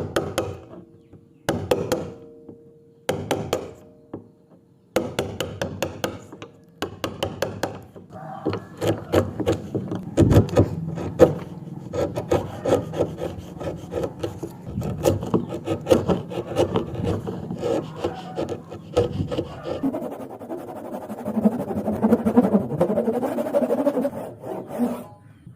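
Hand tool scraping and rasping on wood: separate strokes about a second and a half apart at first, then continuous, rapid working for the rest.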